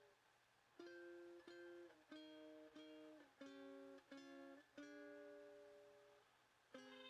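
Quiet background music of plucked string chords. A brisk run of notes starts about a second in, then one long chord rings and fades, and a new chord comes in near the end.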